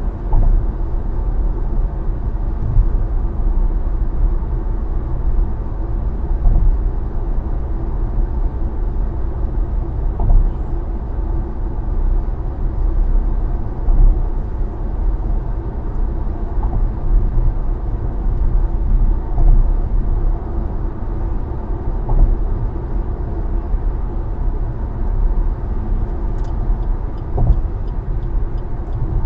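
A car driving steadily on an expressway: a continuous low rumble of road and engine noise with small swells in level.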